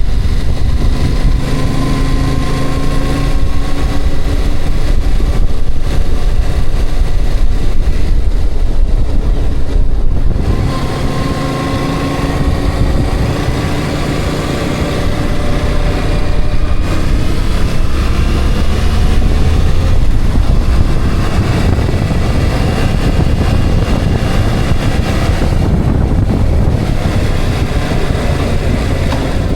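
A motor vehicle being driven, engine and road noise throughout; the engine note climbs slowly, drops about ten seconds in as if at a gear change, then climbs again.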